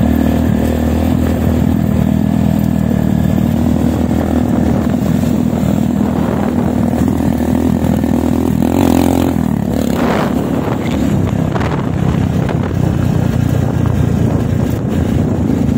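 Motorcycle engines running steadily on a dirt road. About nine seconds in, a motorcycle passes close by and its engine note rises and then falls away.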